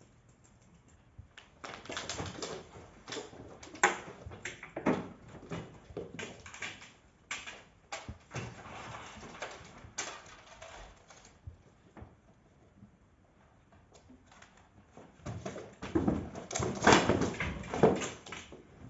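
Rapid, irregular tapping, scuffling and knocks on a wooden floor: footsteps and a cat's paws scampering and skidding during play, in two busy stretches with a quieter gap in the middle.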